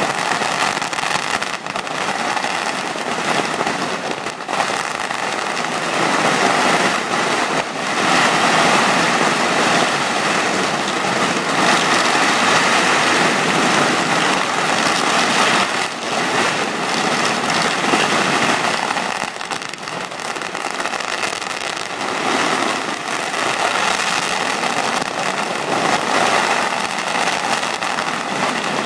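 Firecrackers going off in a nonstop barrage, a dense crackle of small bangs that thins briefly a few times and then picks up again.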